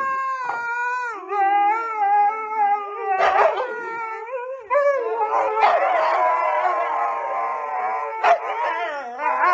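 Two huskies howling. One long wavering howl comes first, then short yowling calls about three seconds in. From about halfway the two dogs howl together, their voices overlapping.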